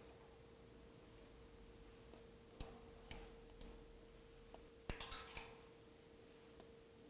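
A few sharp metallic clicks from a small tap wrench and M4 bottom tap being worked and handled at a threaded hole in a lathe's cross slide, with a quick cluster of four clicks about five seconds in. A faint steady hum lies underneath.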